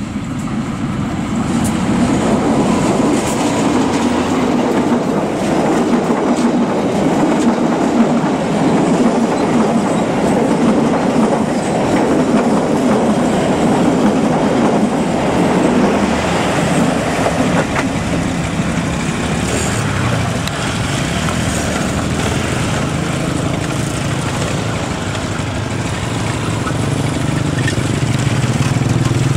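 Diesel-hauled passenger train running past at speed: a continuous loud clatter and rumble of steel wheels on the rails as the coaches go by.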